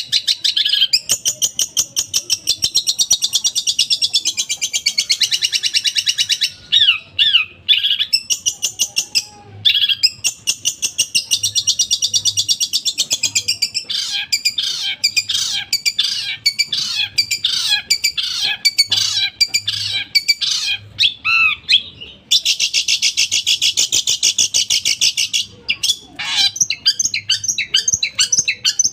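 Long-tailed shrike (cendet) singing a fast, harsh, high-pitched chattering song of rapidly repeated notes. It has a few short breaks, and runs of quick falling notes come in the middle.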